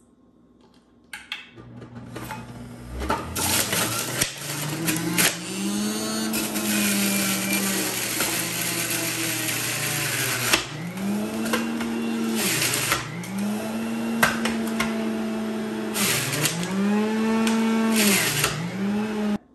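Breville centrifugal juicer motor starting up and running, with its pitch sagging and climbing back each time apples and carrots are pressed down the chute, and loud grinding bursts as the produce is shredded.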